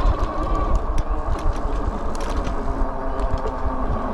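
Wallke H9 AWD e-bike under way, its hub motors whining steadily beneath heavy wind rumble on the microphone, with scattered light ticks.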